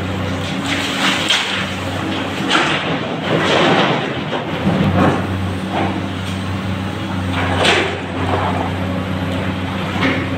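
Diesel engines of a hydraulic excavator and a dump truck running steadily inside a rock tunnel. Several irregular bursts of scraping and clattering come through as the excavator digs muck and loads it into the truck.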